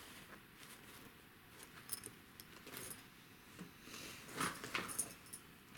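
Fabric drawstring bags being handled: cloth rustling with light clicks and clinks as one bag is put down and the next is reached for, busier and louder about four seconds in.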